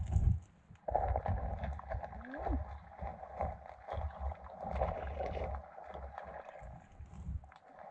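Muffled underwater noise picked up by a GoPro in its waterproof housing: a low rumble with scattered knocks and clicks, dropping out briefly just after the start.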